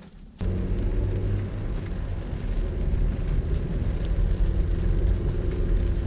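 Car cabin noise while driving: steady low engine and tyre rumble that starts abruptly about half a second in.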